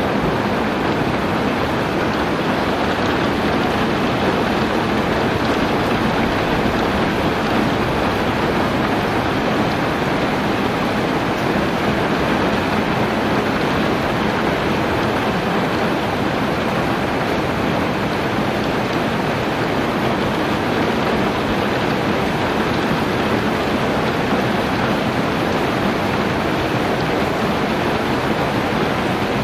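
Heavy rain falling steadily, a dense, even hiss with no separate drops or thunder standing out.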